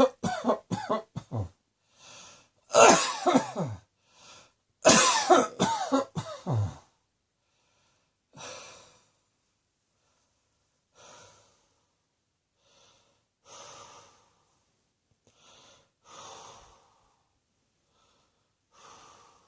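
A person coughing in fits: a string of quick coughs at the start, two more bouts at about three and five seconds in, then softer, spaced-out breaths every two or three seconds.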